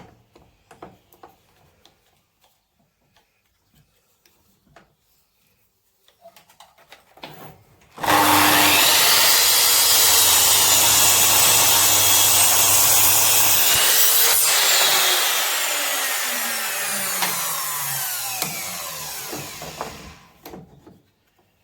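A power saw cutting through a piece of 5x2 timber, starting suddenly about eight seconds in and running loud for about six seconds, then the blade spinning down with a falling whine after the cut. A few light knocks of wood being handled come before it.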